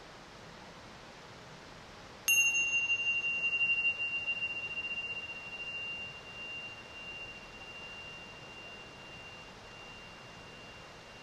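A small metal bell or chime struck once, a couple of seconds in, ringing one high, clear tone that fades away over about eight seconds with a slow wavering pulse.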